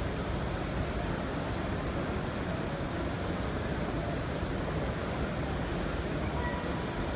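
Steady, even hubbub of a crowded exhibition hall: many voices blended into one continuous wash of noise, with no single sound standing out.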